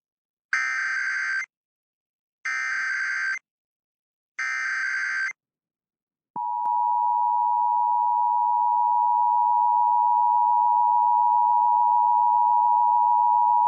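Emergency Alert System header and attention signal: three bursts of digital SAME header data, each about a second long and about two seconds apart, then the steady two-tone attention signal starting about six seconds in. Together they open an EAS required monthly test.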